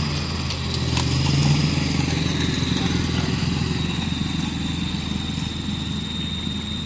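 A vehicle engine running steadily, a low even drone, with a thin high steady tone above it.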